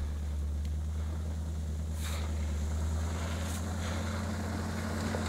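Chevrolet K5 Blazer's engine running at low, steady revs as the 4x4 crawls over rough forest ground, with a couple of faint clicks.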